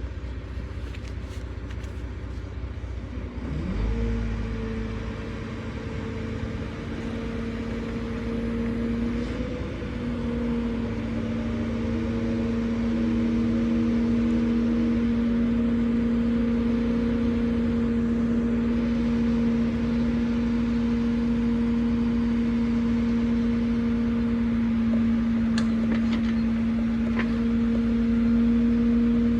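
Truck-mounted crane's engine and hydraulics speeding up about four seconds in, then running with a steady whine and low rumble while the crane works.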